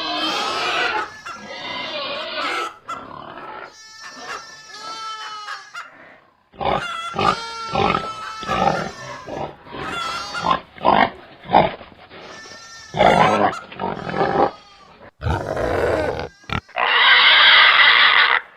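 Pigs, piglets among them, squealing and grunting: a string of short high squeals and brief grunts with pauses between, then one long loud squeal near the end.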